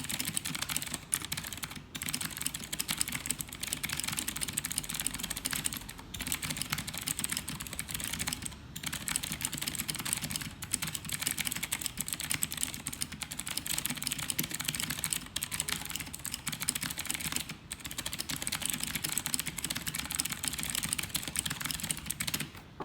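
Fast, continuous typing on an Ajazz AK33 mechanical keyboard with clicky Zorro Blue switches: a dense stream of key clicks with a few short pauses. It stops just before the end.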